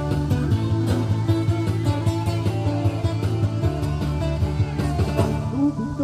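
Acoustic guitar playing an instrumental tune: plucked melody notes over sustained low bass notes.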